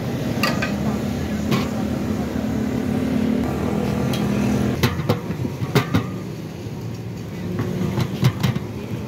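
A motor vehicle's engine runs close by with a steady low hum. In the second half it gives way to a series of sharp knocks and taps.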